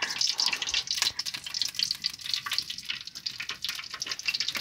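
Hot cooking oil crackling and spitting in an aluminium kadai, a dense run of tiny pops. The cook thinks a little water got into the oil.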